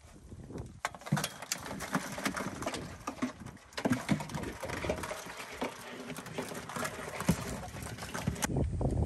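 Live blue crabs clattering and scratching against each other and the plastic walls of an ice chest as they are shaken out of a dip net. It is a dense, irregular run of quick clicks and knocks that stops suddenly near the end.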